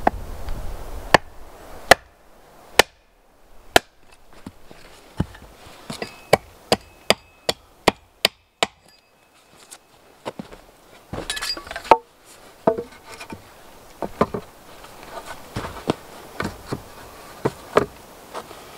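Axe striking wood. First come single sharp strikes about a second apart, then a quicker run of lighter knocks. Later there are scattered wooden knocks and rustling as a log is handled and set onto a post.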